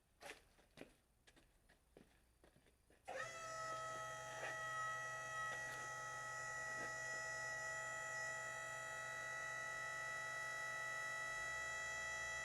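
A sawmill's motor starts up about three seconds in, rising briefly in pitch and then running at a steady hum, after a few faint clicks.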